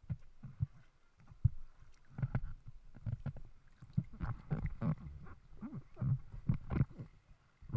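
River water lapping and sloshing against a floating inflatable close to the microphone, in irregular gurgling splashes that come thickest through the middle of the stretch.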